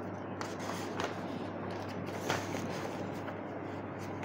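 Printed paper sheets being handled and a page turned over: a few short rustles and taps, the loudest a little after two seconds, over a steady low hum.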